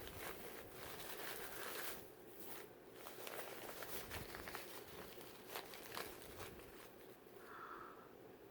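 Packaging crinkling and rustling as a small gift pouch and the wrapping inside it are opened by hand, with light clicks and scrapes scattered throughout.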